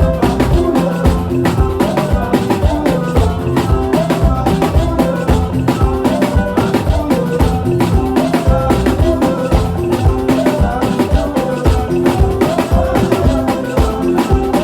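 Makossa music: an electric bass guitar playing a busy, quickly moving line over drums and percussion with a steady, dense beat.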